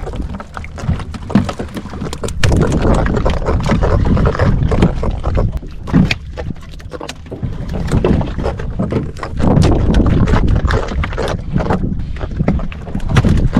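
Fishing boat at sea, its engine running steadily under a loud rushing noise, with many sharp knocks and thuds throughout.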